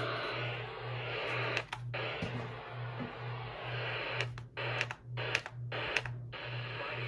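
Etón Zoneguard radio's small speaker playing an FM music station, heard through a hiss of reception noise with a steady low beat. A few short sharp clicks come in the second half.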